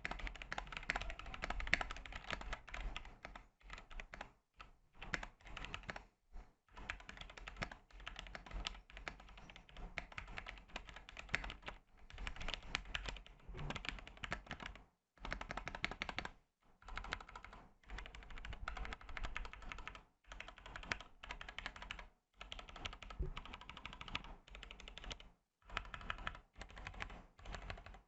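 Typing on a Kemove DK61 mechanical keyboard with Gateron Brown tactile switches and PBT dye-sub keycaps: rapid keystrokes in runs of a few seconds, broken by short pauses.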